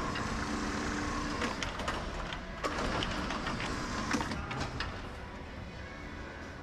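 Large commercial sectional garage door opening under a gear-head side-mount operator: a steady mechanical running noise from the door travelling in its tracks, with scattered clicks and knocks, easing a little after about four and a half seconds.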